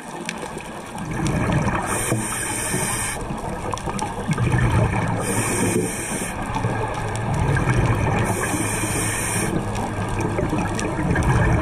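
Scuba regulator breathing heard underwater: a short hissing inhale through the second stage about every three seconds, three times, alternating with the low bubbling gurgle of exhaled air.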